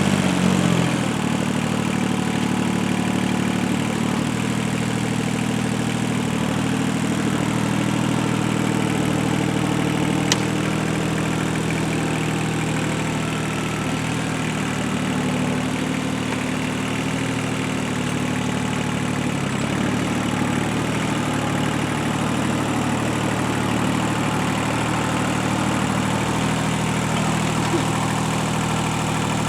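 Tractor engine running steadily at an unchanging speed, with one sharp click about ten seconds in.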